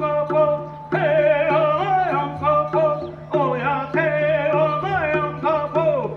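Background music: a wavering, ornamented melody over a steady low drone, in phrases that restart every second or two.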